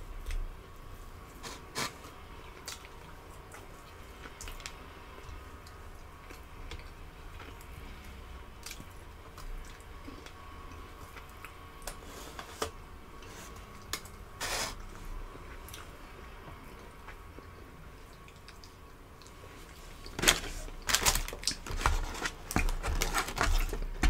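Close-miked eating sounds: small wet, sticky clicks and squishes of fingers pulling meat from a chicken wing and of chewing. Near the end come louder crinkling and rustling bursts from the paper wrapper being handled.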